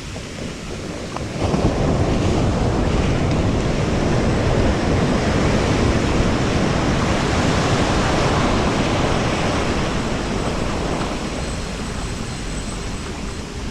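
Ocean surf breaking and washing up the beach, with wind on the microphone; the rush gets louder suddenly about a second and a half in and eases off over the last few seconds.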